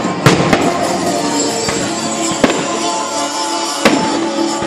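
Aerial firework shells bursting with four sharp bangs, two close together just after the start and others at about two and a half seconds and near the end, over steady music.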